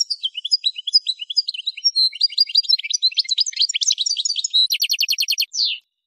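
Algerian goldfinch (European goldfinch, parva race) singing a long phrase of quick high twittering notes, ending in a fast even trill of about a dozen notes and one last note before it stops.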